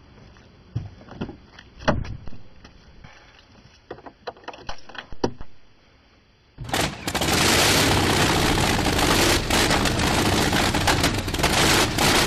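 Scattered clicks and knocks of a car door and cabin being handled. About six and a half seconds in, a car engine starts from the push-button and runs loud, then cuts off sharply at the end.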